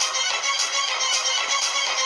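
Music: a bright, thin-sounding tune with almost no bass and a beat about twice a second, one of the well-known YouTube meme sound clips.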